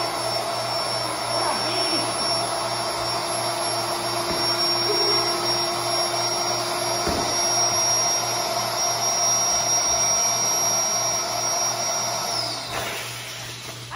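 Electric air pump running steadily at the valve of an inflatable pool, with a constant high whine. Near the end it is switched off, and its whine falls away as the motor spins down.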